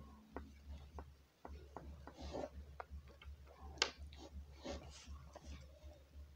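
Oil pastel being worked over card paper: irregular light ticks and short scratchy strokes, with one sharper click about halfway through, over a low steady hum.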